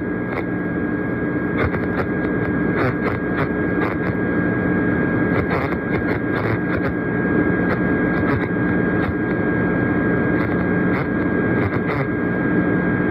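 FM radio static after the station's signal cuts out mid-alert: a steady hiss with a constant hum and a thin steady whine, broken by scattered crackles.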